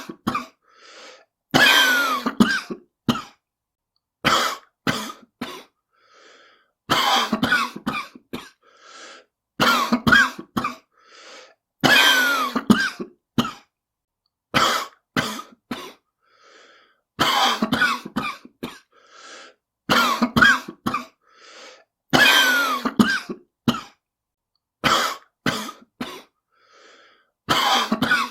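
A person coughing in repeated fits, a smoker's cough: each fit is one loud hacking cough followed by a few weaker coughs, recurring about every two and a half to three seconds with silent gaps between.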